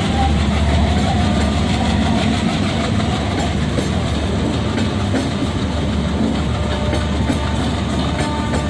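Coaches of the 12224 Ernakulam–Mumbai Duronto Express rolling past as the train departs, wheels clacking over the rail joints over a steady low rumble, with a few sharper clacks about eight seconds in.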